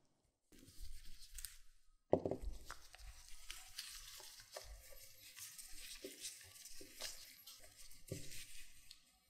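Gloved hands handling a soft sheet of glutinous rice cake dough on a silicone mat: a soft thud about two seconds in, then continuous glove rustling with small taps as the dough is lifted, draped over a small bowl and pleated.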